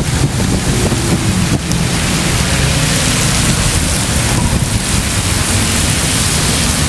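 Wind of a snowstorm blowing across the microphone, a loud steady rushing.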